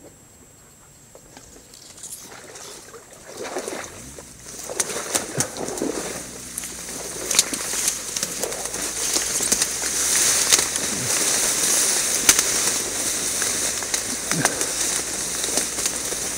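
Rustling and crackling through dry reeds, with splashing in shallow water, starting about two seconds in and growing louder.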